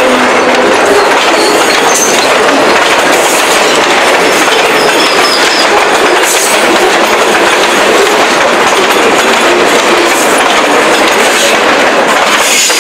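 Freight train's boxcars and covered hoppers rolling past close by: steady, loud rumble and clatter of steel wheels on the rails, with a few brief high wheel squeals.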